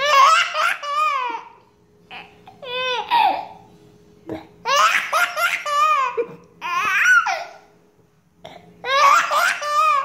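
A baby laughing hard in about five separate bouts of high-pitched belly laughter, each a second or so long, with short pauses between them.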